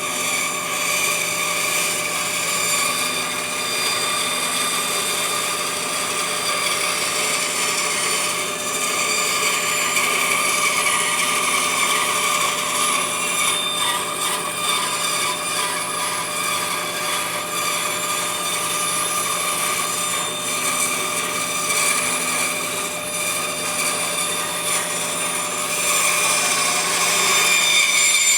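Grizzly G0555X 14-inch bandsaw running with its blade cutting through wood: a steady machine whine with a whirring sawing noise whose level shifts a little as the cut goes on. It cuts off suddenly at the very end.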